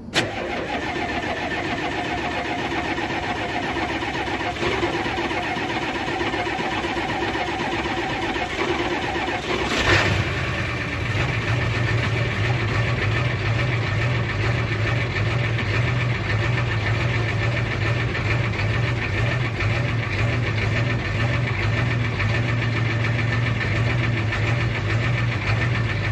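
Ford 7.3 IDI diesel V8 cranking and running unevenly on a cold start, catching fully with a sharp burst about ten seconds in and then settling into a steady idle with a strong low hum. A hard cold start after the truck sat for a week, which the owner traces to a bad fuel injector.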